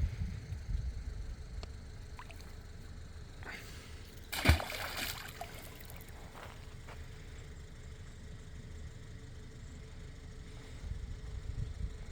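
A single splash about four and a half seconds in, as a Glock pistol on a paracord line is thrown into a pond. A low steady rumble runs underneath.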